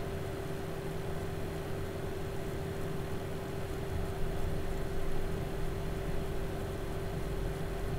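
Steady electrical hum: one constant mid-pitched tone over a low rumble, with a faint knock a little past four seconds in.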